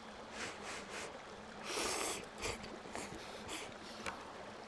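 A person slurping hot ramen noodles: a run of short breathy slurps, with one longer slurp about two seconds in.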